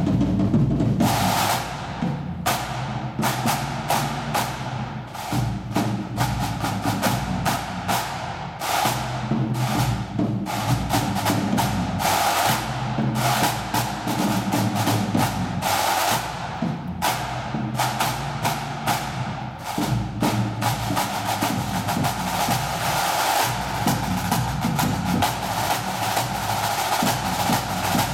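Live drumming: fast snare drum strokes and rolls with bass drum beats, over a steady held tone.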